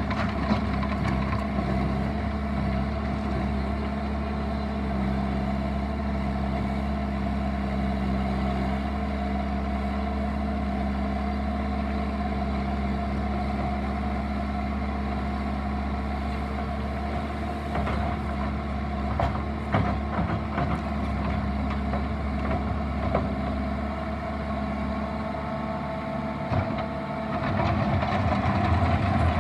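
Bobcat T750 skid steer's diesel engine running steadily, with a few sharp knocks past the middle and the engine getting a little louder near the end.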